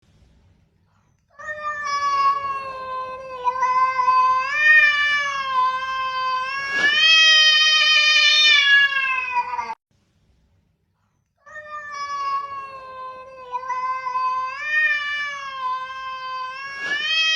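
A cat's long, drawn-out yowl that wavers and rises in pitch, lasting about eight seconds before being cut off abruptly. After a short silence the same yowl starts again.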